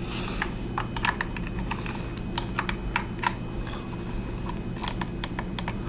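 Irregular light plastic clicks and taps from handling a small power bank and its USB charging cable, with a steady low hum underneath.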